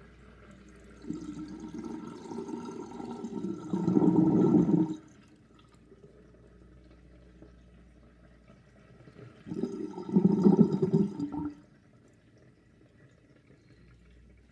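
Bathroom sink drain with a 38.5 mm plug gurgling loudly as water swirls down through it. The gurgling comes in two spells: one builds for about four seconds to its loudest, and a shorter one starts about nine and a half seconds in. Between the spells there is only a quiet trickle.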